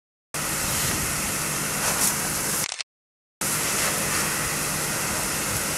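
Steady rushing hiss of fire hoses spraying water onto a burning straw pile, over a faint low steady hum. The sound cuts out to silence twice, briefly: at the start and about halfway through.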